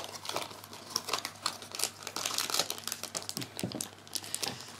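Clear plastic wrapping crinkling and rustling in the hands in quick, irregular crackles as a small item is unwrapped.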